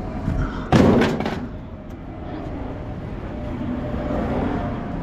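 A loud slam about a second in, with a short clatter trailing after it, over a steady low rumble.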